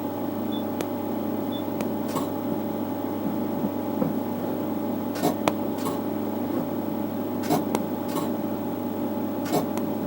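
Nd:YAG laser unit humming steadily, with sharp snaps every couple of seconds, often in pairs, as laser pulses strike a tool bit and blast off its black coating.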